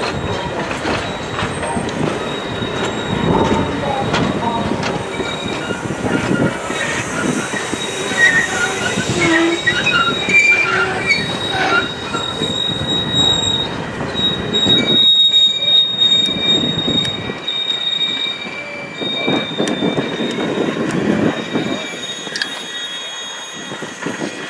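Railway passenger cars rolling slowly past, steel wheels clacking on the rails and squealing. Short high squeals come and go, with a long steady high squeal through the middle.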